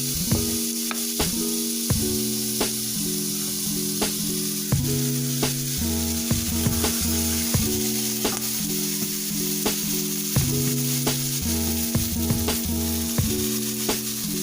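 Bison burgers and red onions sizzling in butter in a frying pan, a steady hiss, under background music with a bass line and a regular ticking beat.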